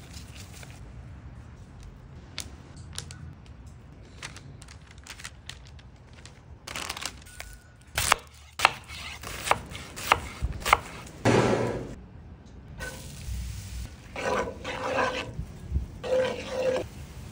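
Kitchen prep sounds: a chef's knife chopping an onion on a cutting board, a run of sharp knocks about two a second, loudest in the middle. Near the end, rustling and scraping bursts from diced onion in a cast iron skillet.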